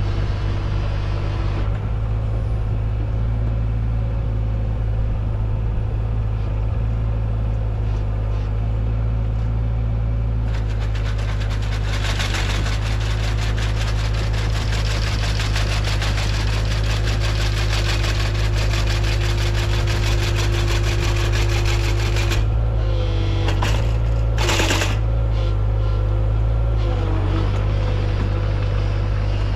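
Mini excavator's engine running steadily under load, with the hydraulically driven finger-bar mower's reciprocating knife clattering rapidly from about a third of the way in until about three quarters through. A short burst of noise comes just after the clatter stops.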